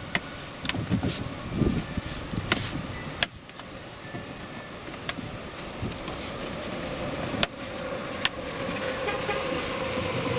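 Scattered sharp clicks and taps and hand rustling as a stainless steel sill plate is pressed down onto the plastic rear sill trim. Street traffic runs underneath and swells into a steady hum over the last few seconds.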